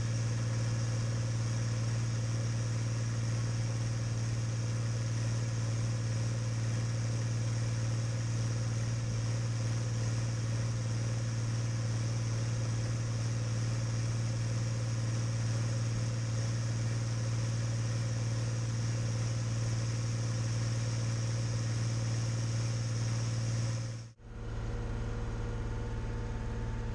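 Deutz-Fahr DX6.05 tractor engine running at a steady speed, a constant drone with a strong low hum. About 24 s in the sound drops out for a moment, then carries on with a slightly different, thinner engine note.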